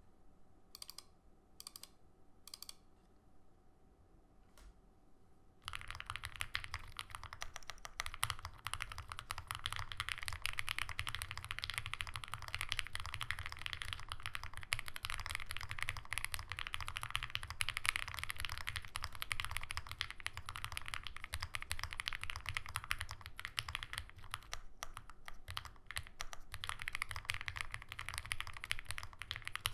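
Mechanical keyboard typing on an Owlab Spring with lubed 43 Studio OPBlack switches on an aluminum full plate with PE foam, and GMK Modern Dolch 2 keycaps. A few single keystrokes, then steady fast typing from about six seconds in.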